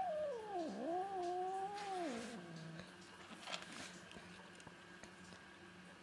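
A cat's drawn-out, angry yowl at being stroked while she eats: one long call that dips in pitch, holds, then falls away a little over two seconds in. A few faint clicks of her eating dry kibble follow.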